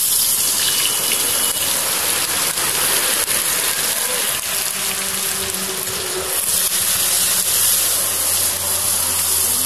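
Sliced onions frying in hot oil in a steel kadai, a loud steady sizzle with fine crackling throughout.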